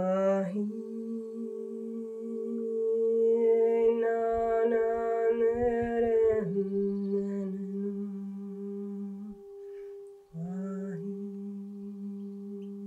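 A woman humming long, steady held notes, the first about six seconds long, then two shorter ones with a brief break about ten seconds in. Under the voice a steady ringing tone sustains without a break.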